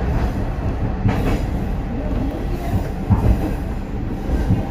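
Isumi Railway 350-series diesel railcar running along the track: a steady low rumble of engine and wheels on rail, with a heavier knock from the wheels about every two seconds.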